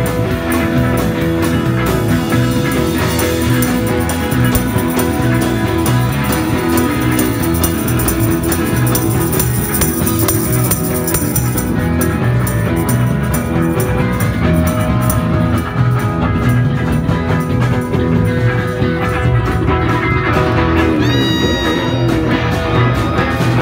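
Live rock band with electric guitars and a drum kit playing a steady-beat song through a PA. There is a sliding, pitch-bending note near the end.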